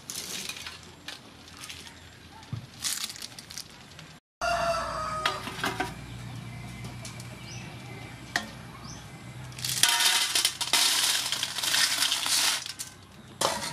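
A colander of live snails tipped into an aluminium steamer pot, the shells clattering and rattling against each other and the metal for about three seconds near the end. Earlier, a rooster crows once in the background.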